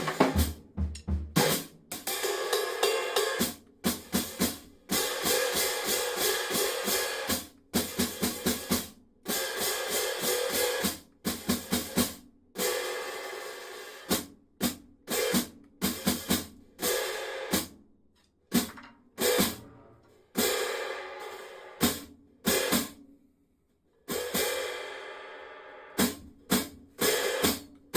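A pair of 17-inch hi-hat cymbals (1210 g top, 1474 g bottom) played with a stick, opened and closed. Single strikes and quick runs of strikes ring out, then are choked off abruptly; a few strikes are left to fade away. The 1210 g cymbal has a repaired crack.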